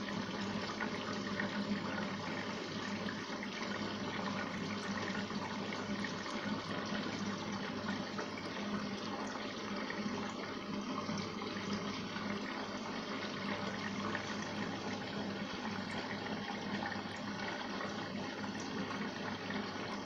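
Arçelik front-loading washing machine filling with water at the start of a cotton 60 °C cycle: a steady sound of water running into the drum, with a low steady hum beneath it.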